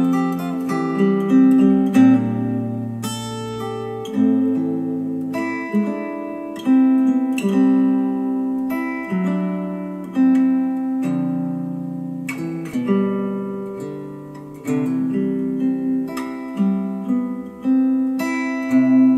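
Acoustic guitar instrumental music played back through a pair of Elac DBR62 bookshelf speakers, with plucked notes ringing out and fading one after another.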